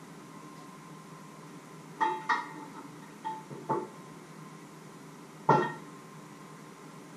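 A white mug and a red flask being handled and set down on a wooden worktop: five short clinks and knocks, each ringing briefly, the loudest about five and a half seconds in. A faint steady hum runs underneath.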